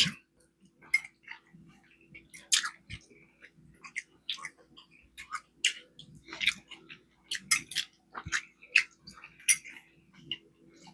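Close-miked chewing and mouth sounds of a person eating: irregular wet clicks and smacks, a few every second, over a faint steady hum.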